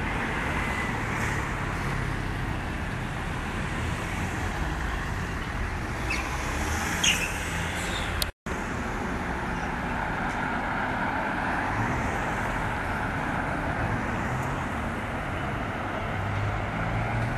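Steady city street traffic: cars driving past along the road, with a brief high chirp or squeal about seven seconds in. The sound cuts out completely for a moment just after that.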